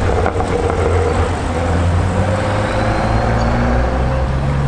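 A car's engine driving past, its pitch rising slowly as it accelerates.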